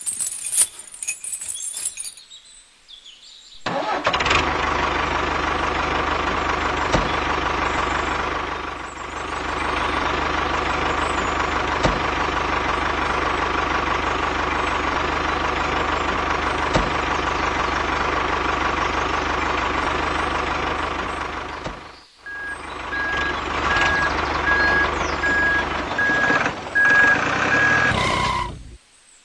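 Tractor engine running steadily at an even pitch, easing briefly once. Near the end a more uneven engine sound runs under a string of evenly spaced high beeps like a reversing alarm, then cuts off.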